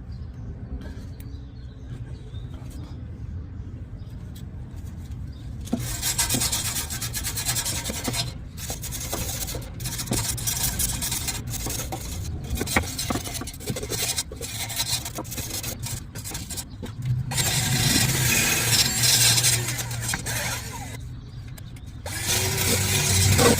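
Wire brush scrubbing corrosion off a cracked steel exhaust pipe to prepare it for patching. The scraping comes in spells from about six seconds in, broken by short pauses, over a low steady hum.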